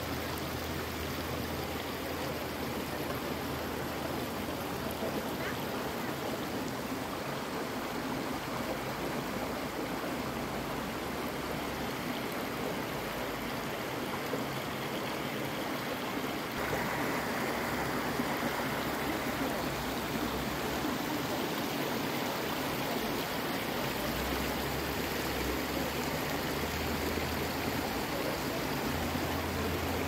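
Shallow rocky creek running over stones: a steady rush of water that gets a little louder about halfway through.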